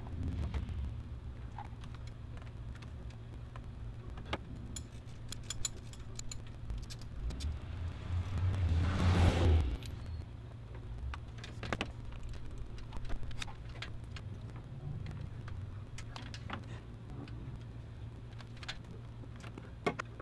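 Scattered metal clicks and clinks of tools and engine parts being handled under a car's hood, over a steady low hum. A passing vehicle rises and falls about eight to ten seconds in, the loudest sound.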